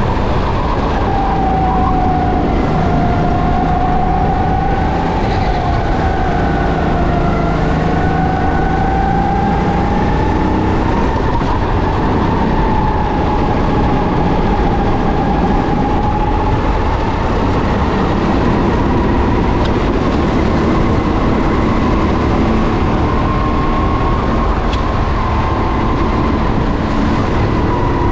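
Kart engine running at speed, its pitch rising and falling slowly over the lapping.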